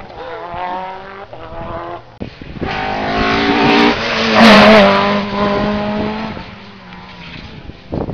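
Rally car passing close at speed with its engine at high revs. It is loudest about four and a half seconds in, then drops in pitch and fades as it goes away.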